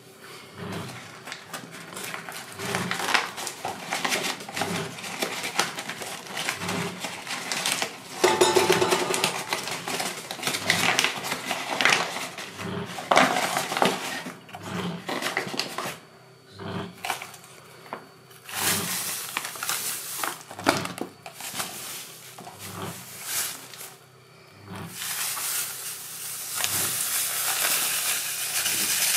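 Kitchen handling noises: clinks and knocks of steel pots and utensils and the rustle of a paper sugar bag. In the last few seconds there is a steady hiss of sugar pouring from the bag into the pot.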